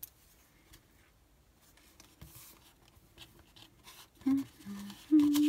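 Faint rustling and light taps of paper and card being handled. Near the end a woman makes short hummed 'mm' sounds, the last one held for about a second and louder than the rest.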